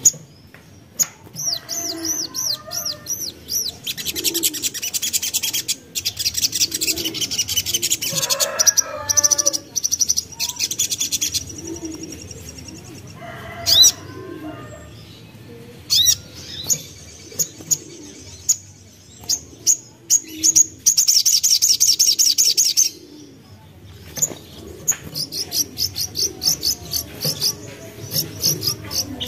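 Young crimson sunbird (sogok ontong) calling: a busy string of sharp, high chirps broken by fast rattling trills. Soft low cooing notes repeat underneath.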